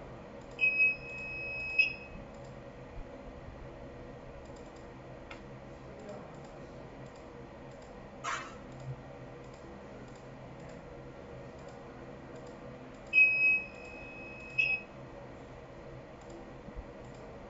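Signal tower light's buzzer giving a steady high beep, twice: once for about a second near the start and once for about a second and a half about two-thirds through, each switched on and off by a driver module output. Faint mouse clicks fall between the beeps.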